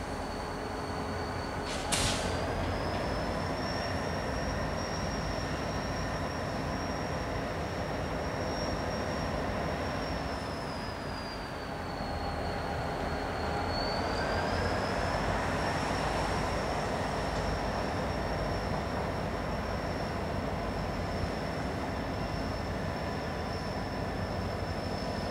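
Rocky Mountaineer passenger train rolling slowly through a rail yard, its wheels giving a long, high flange squeal that dips in pitch near the middle and rises again, over a steady low rumble. A single sharp click comes about two seconds in.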